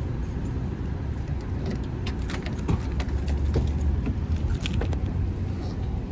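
Steady low rumble of an idling car heard inside the cabin, with light clicking and rattling of small things being handled.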